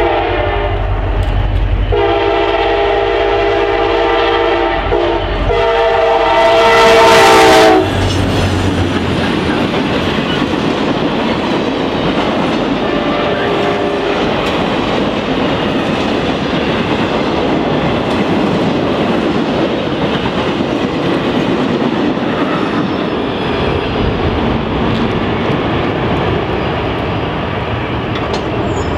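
The air horn of a CSX passenger train led by three EMD F40PH-2 locomotives sounds a chord in long blasts, broken briefly about five seconds in. It is loudest just before it stops about eight seconds in. The passenger cars then roll past with a steady rumble and clatter of wheels on rail, which fades near the end.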